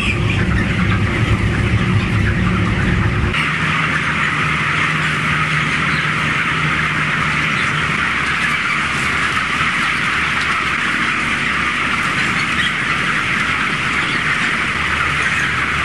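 A large flock of broiler chickens peeping and cheeping all at once in a dense, steady chatter, over a low mechanical hum. About three seconds in, the hum drops and the chatter becomes louder.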